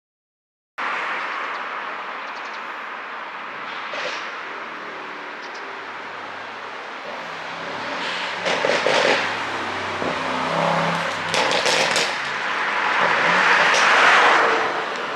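Mercedes-AMG S63's twin-turbo V8 exhaust with a pop-and-crackle ECU tune, running steadily and breaking into rapid crackling pops, in clusters about halfway through and again a few seconds later. The sound cuts in suddenly about a second in.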